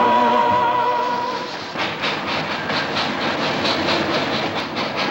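A held note of music fades out about a second and a half in, giving way to a steam locomotive chuffing steadily, about three or four chuffs a second, with hissing steam.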